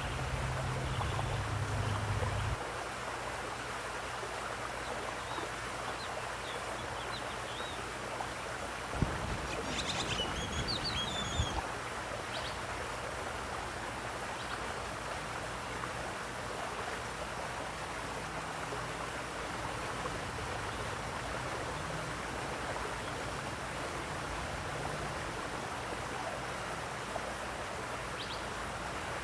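Running water making a steady rushing sound, with a few short bird chirps about ten seconds in. A low rumble runs under the water at the start and again around ten seconds in.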